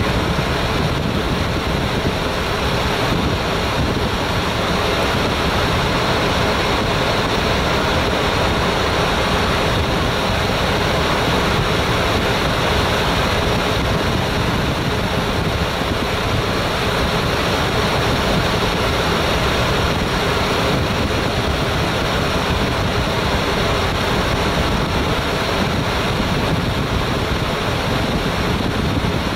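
Steady rushing noise inside a Boeing 787 flight deck, with no change in level or pitch.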